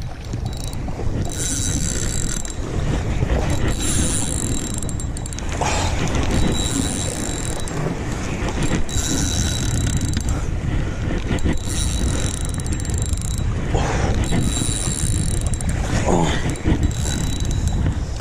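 Spinning fishing reel being cranked, its gears whirring in spells with a thin high whine, over a steady rumble of wind buffeting the microphone.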